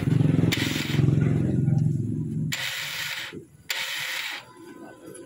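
Yamaha Mio Soul scooter's starter being cranked with the belt cover off: a pulsing whir for about two and a half seconds, then two shorter noisy bursts. The starter clutch (Bendix drive) is slipping and not gripping, so the starter gear spins without catching the engine.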